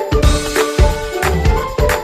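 Upbeat background music with a steady beat of bass drum and percussion clicks, about four beats a second, under a pitched melody.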